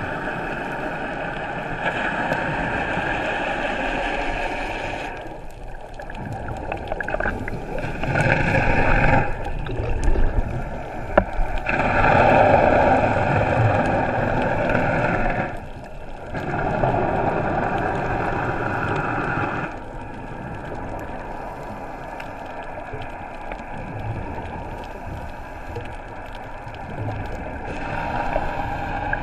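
Muffled underwater rushing and gurgling heard through a camera's waterproof housing, jumping abruptly in level several times, with a few sharp clicks near the middle.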